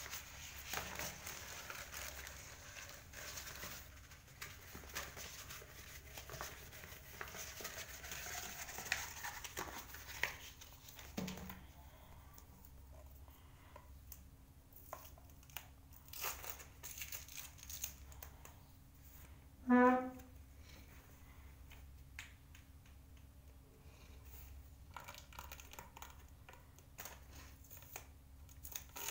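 Plastic mailer bag and a paper-backed sticker sheet crinkling and rustling as they are handled, then sparser rustles and clicks as tape and brown wrapping are peeled off cardboard tubes. One short pitched sound stands out about two-thirds of the way through.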